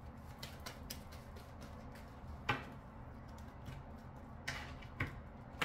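Short clicks and taps of a deck of cards being handled on a table, with one sharp tap about two and a half seconds in and a few more near the end, over a low steady hum.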